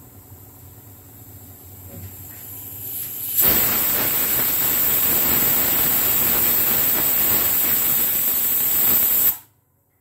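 Pigeon aluminium pressure cooker whistling: a faint hiss builds, then about three seconds in the weight valve lifts and steam escapes as a loud, steady hissing whistle with a high tone for about six seconds, stopping abruptly. It is the cooker venting built-up steam pressure through its weight valve.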